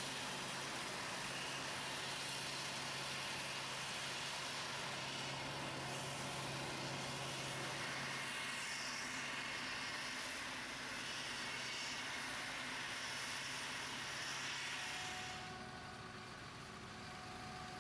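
Claas Jaguar forage harvester running steadily under load while chopping maize, its engine and chopper giving a dense, even drone with a steady low hum. About three-quarters of the way in it gives way to a quieter John Deere tractor engine pulling a loaded silage trailer.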